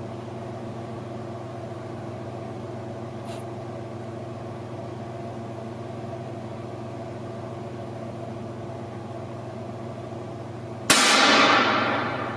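A steady low hum, then about eleven seconds in a single sudden, loud bang that rings out and fades over about a second and a half.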